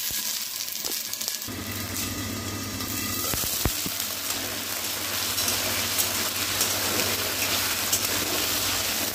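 Potato wedges sizzling steadily in hot mustard oil in a kadai, stirred and turned with a metal spatula, with a few sharp knocks about three and a half seconds in. A low steady hum comes in about a second and a half in.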